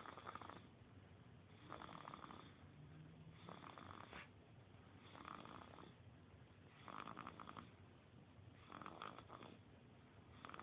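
Baby snoring softly in a steady rhythm, one fluttering snore about every two seconds.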